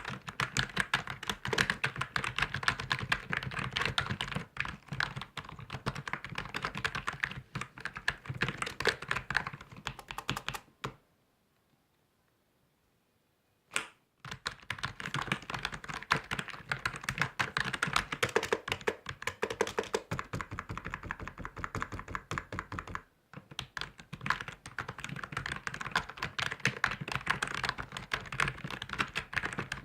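Fast typing on a computer keyboard: a dense run of key clicks that stops for about three seconds near the middle, then resumes with a short break later on.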